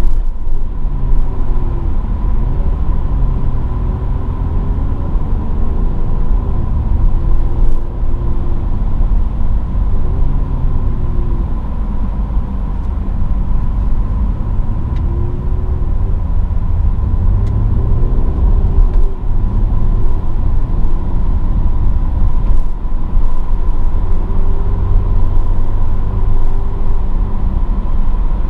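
Mercedes-AMG GLE 43's twin-turbo V6 engine running while driving, its pitch rising and falling several times as engine speed changes, over a steady low road rumble.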